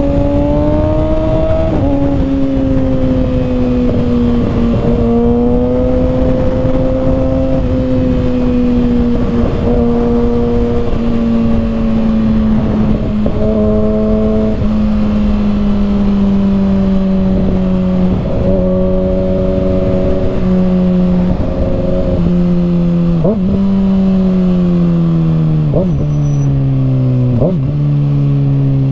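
2021 Kawasaki ZX-6R's 636 cc inline-four through an M4 carbon slip-on exhaust, under way. The engine pitch climbs for the first couple of seconds, then eases slowly down at a steady cruise. Near the end the pitch steps down several times with short throttle blips as the bike downshifts, with wind noise underneath.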